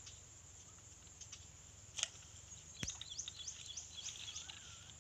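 A bird chirping over faint steady outdoor background noise. It gives a quick run of short, rising high notes, about eight of them, starting about three seconds in, just after a sharp click, with a single short chirp about two seconds in.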